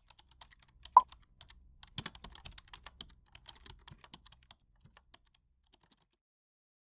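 Keyboard typing sound effect: a run of quick clicks, with one louder single click about a second in, growing dense for a couple of seconds and then thinning out.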